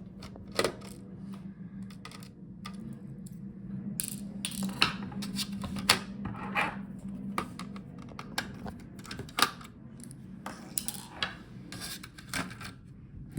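Laptop motherboard removal: a screwdriver and small metal screws clicking and scraping against the chassis, with scattered sharp ticks and short rubbing sounds, over a low steady hum.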